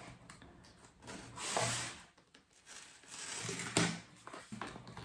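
A cardboard shipping box being opened by hand: cardboard and packaging scraping and rustling in a few short stretches, with one sharp tap about four seconds in.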